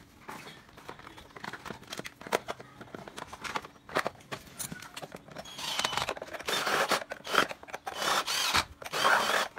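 Clicks and rustling of hands handling the plastic housing and parts of a mini pressure washer. About halfway through, a louder, grainy scraping noise sets in and comes and goes in several stretches.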